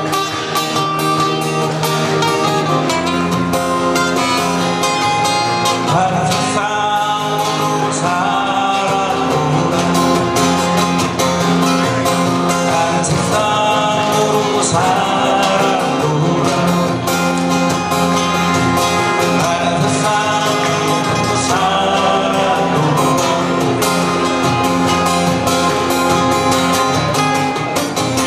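An ensemble of acoustic guitars playing a song together, chords and melody lines in several parts without a break.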